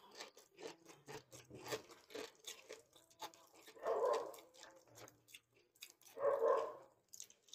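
Crunchy chicharon (fried pork rind) being chewed: a run of small crisp crunches and mouth clicks. Two short, louder sounds break in about four and six seconds in.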